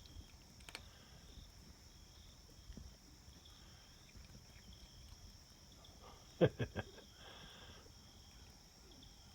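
Faint, steady chirring of crickets in the background. About six and a half seconds in come three quick, sharp knocks in a row.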